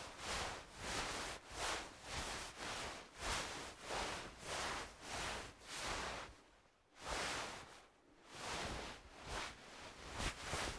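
Wool fabric being moved and rubbed, a rustling swish repeated about twice a second, with a short pause about six and a half seconds in.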